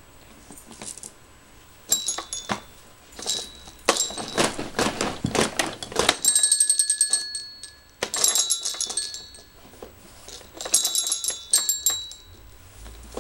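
A baby's toy with small bells, jingling and clinking in several bursts of rattling, with bell-like ringing.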